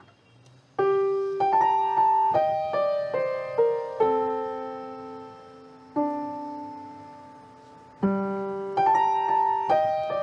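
Solo piano music. After a faint start, notes and chords come in about a second in and are each left to ring and fade, with a few slow held chords in the middle before quicker notes return.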